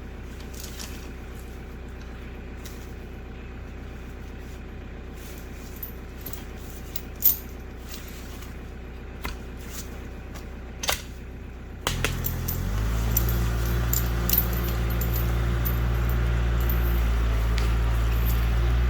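Kioti tractor's diesel engine running at a steady low idle, with a few sharp clanks. About twelve seconds in it is throttled up and runs steadily louder at higher revs.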